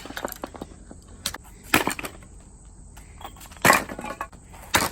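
Sledgehammer blows on hard wood: three heavy cracking strikes about a second or two apart, with lighter knocks and rattles of wood between them.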